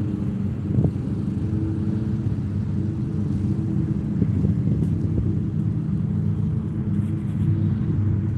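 Steady low engine drone with a rumble, holding one even pitch, with a couple of faint knocks along the way.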